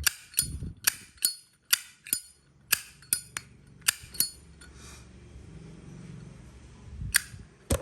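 Zippo windproof lighter, brass case with brushed chrome plating, its hinged lid being snapped open and shut: a run of sharp metallic clicks over the first four seconds, then two more clicks near the end.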